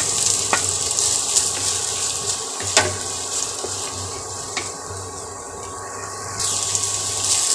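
Hot oil sizzling in a kadhai as julienned carrots go in on top of sliced onions and green chillies, with a few light clicks as they are stirred.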